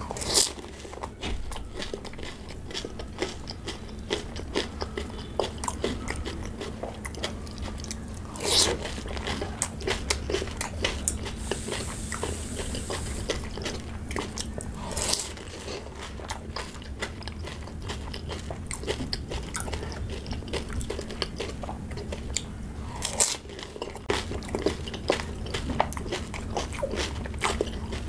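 Close-miked crunching and chewing of pani puri: crisp, hollow, water-filled puri shells cracking in the mouth and being chewed. A louder crunch comes every seven or eight seconds as each new one goes in, with steady crackly chewing between.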